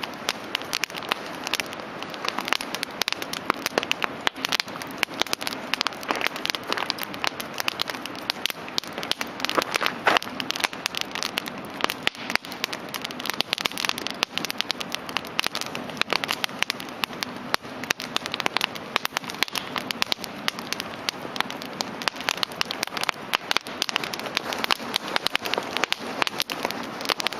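Campfire crackling: a dense, irregular run of sharp snaps over a steady soft hiss.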